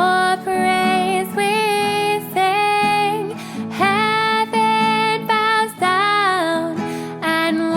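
A female voice singing a song with actions over guitar accompaniment.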